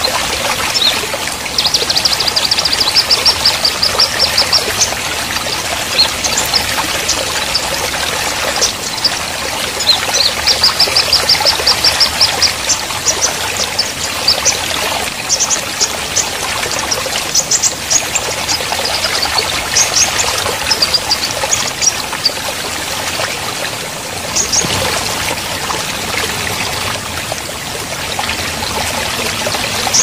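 A shallow stream rushing and splashing over rocks, a steady hiss of flowing water. High chirping runs above it: two rapid trills of repeated notes, one near the start and one about ten seconds in, then scattered single chirps.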